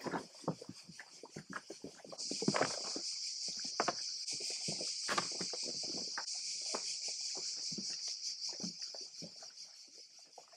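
Cicadas buzzing in a steady, high, shrill chorus that comes in suddenly about two seconds in and fades a little near the end. Scattered light clicks and knocks sound underneath it.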